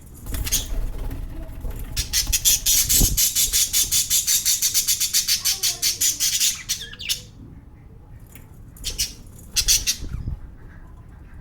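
Lovebirds squawking: a rapid run of shrill calls, about five a second, lasting several seconds, then two short bursts near the end.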